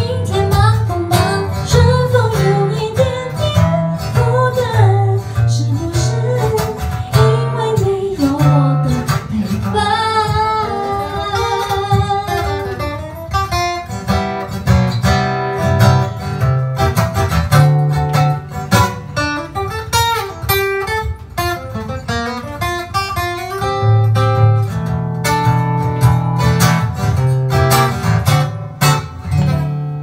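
A woman singing a gentle, sad love song live into a microphone, accompanied by an acoustic guitar.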